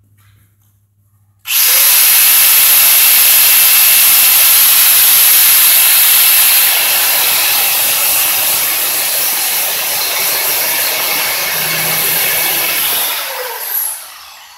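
Grinder starting up and grinding the end off a steel bolt that is slightly too long, with a steady high whine and grinding hiss. It is switched off and winds down near the end.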